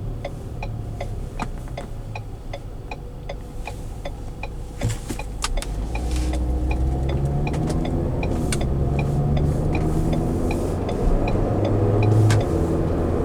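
Inside a moving 2015 Ford Edge: engine and road rumble with an even ticking, about two to three ticks a second, typical of the turn signal. About six seconds in, the engine note rises as the car speeds up.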